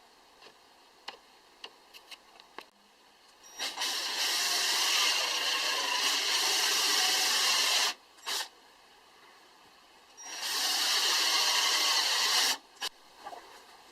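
Light clicks and taps, then two long stretches of harsh, even, noisy tool work, about four seconds and two seconds long, each starting and stopping abruptly.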